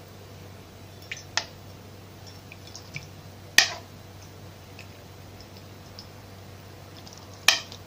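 Sour juice of crushed unripe grapes (koruk) strained from a ceramic bowl into a glass jug: faint dripping, with a few sharp clinks of the glass tumbler and bowl against the jug, the loudest about halfway through and another near the end.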